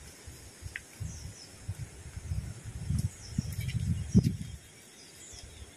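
Dull footsteps and handling bumps of someone climbing a wet stone path, the strongest about four seconds in. Faint high bird chirps in the background.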